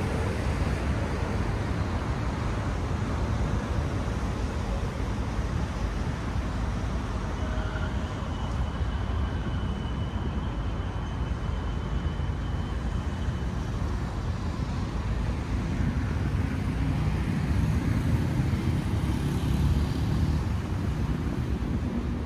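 Steady road traffic noise of cars passing, a low rumble that swells somewhat in the last few seconds, with a faint thin high tone for several seconds in the middle.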